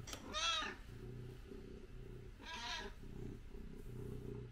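A cat meowing twice, short calls that rise and fall in pitch, about two seconds apart.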